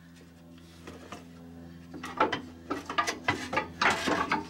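Metal clunking and rattling in quick irregular knocks as the truck's exhaust pipe is shoved and yanked by hand, starting about two seconds in, over a steady low hum.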